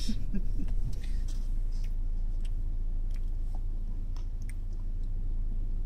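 Steady low rumble of a car's engine and road noise heard inside the cabin while driving, with a few faint scattered clicks.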